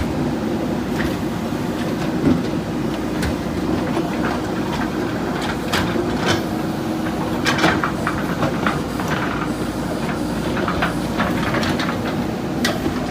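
JCB backhoe loader's diesel engine running steadily under work, with scattered metallic clanks and rattles from the digging gear.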